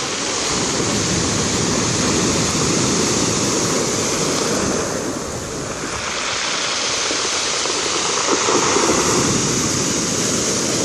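Sea waves breaking and washing up a pebble shore, swelling to two peaks.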